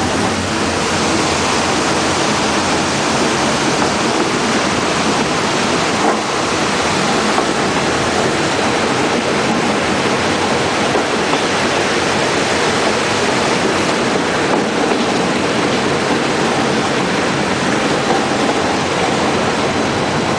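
Steady rushing noise of the rack railway train running along the track, blended with a rushing mountain stream and waterfall beside the line.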